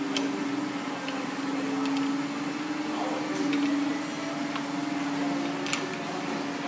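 A steady hum, with a few light metallic clicks from a spanner wrench being worked on the threaded wet cup of a pump cylinder.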